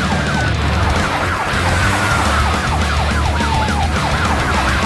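Police car sirens: a fast yelp of about five sweeps a second, with a slower wail rising and falling over it, and a steady low engine drone underneath.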